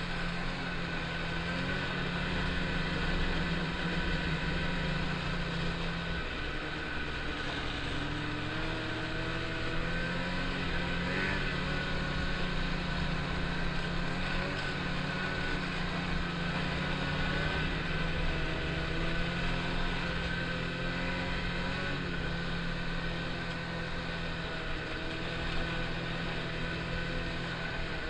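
Snowmobile engine running under way on a trail, its pitch rising and easing a little as the throttle changes, with wind noise.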